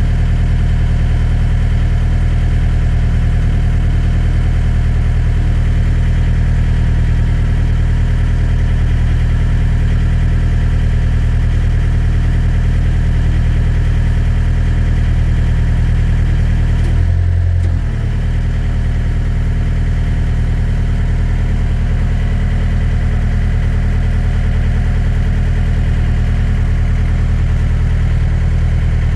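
Heavy machine's diesel engine running steadily at idle, a deep even drone. A little past halfway it briefly changes and dips, then settles back to the same steady running.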